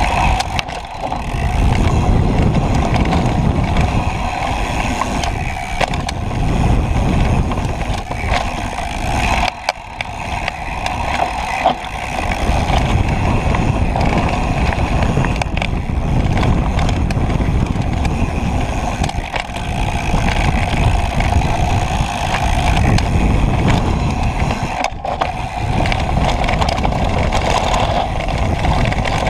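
Propain Tyee mountain bike descending a dirt downhill trail at speed: a steady rumble of knobby tyres on dirt and wind on the microphone, with sharp knocks and rattles as the bike hits bumps.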